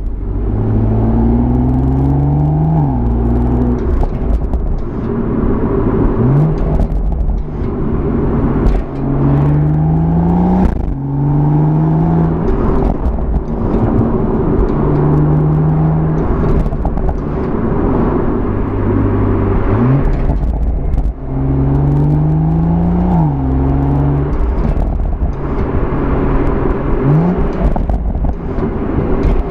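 BMW M140i's 3.0-litre turbocharged straight-six under way, its revs repeatedly climbing for a second or two and then dropping sharply at gear changes. A few quick, steep rises in revs stand out, over a steady low rumble of road noise.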